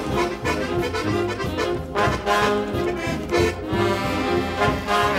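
Charanga brass band music: a lively tune on trombones and trumpets with a steady beat.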